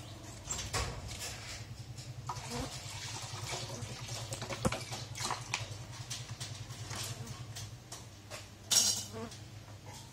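A plastic milk packet is handled and cut open with scissors: scattered small snips, crinkles and clicks, with one brief louder burst of noise about nine seconds in. A steady low hum runs underneath.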